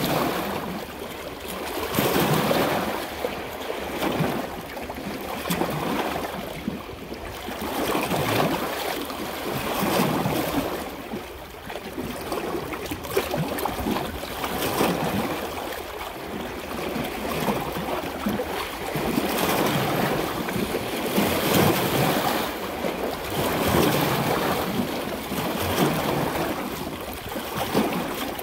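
Rushing water, a continuous noisy wash that swells and eases every two to three seconds.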